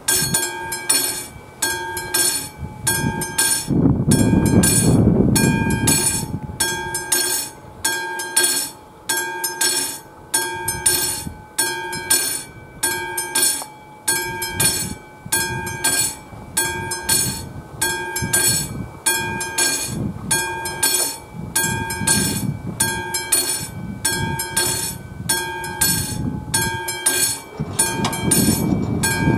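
Classic mechanical bell of an AŽD 71 level-crossing warning signal ringing in even strokes, about three every two seconds, each stroke a clear ringing tone. It is the crossing's warning that a train is approaching.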